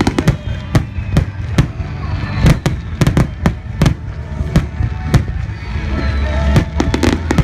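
Fireworks going off in quick succession: sharp bangs and pops at irregular intervals, several a second, over a low rumble.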